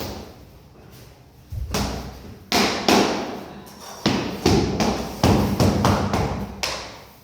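A run of loud thumps and knocks from floor work, starting about a second and a half in and coming several in quick succession.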